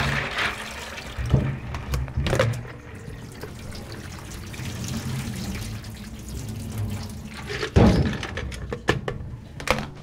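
Tap water running into a plastic bowl of keyboard keycaps being rinsed by hand in a stainless steel sink. Several knocks and clunks of plastic against the sink break in, the loudest about two seconds before the end.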